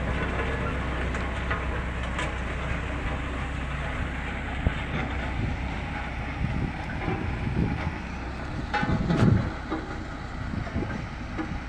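JCB 3DX backhoe loader's diesel engine running steadily under work, with a constant low drone and several louder surges about three-quarters of the way through.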